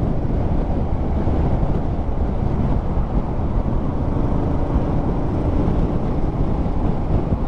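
Steady wind rush over the rider's microphone mixed with the running of a 2019 Honda Africa Twin CRF1000L's parallel-twin engine at highway speed.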